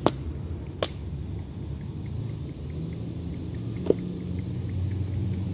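Three sharp knocks, the first two close together near the start and one about four seconds in, over a steady low rumble that grows slightly louder toward the end.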